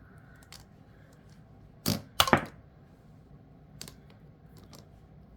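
Small cat-figure game pieces clicking and knocking together as they are handled: a loud double knock about two seconds in, then a few lighter ticks.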